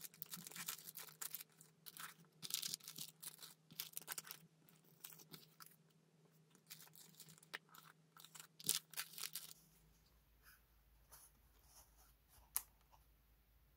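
Clear plastic sticker packets and paper stationery packs crinkling and rustling as they are handled, in many short rustles over the first nine seconds or so, then only a few light taps and brushes.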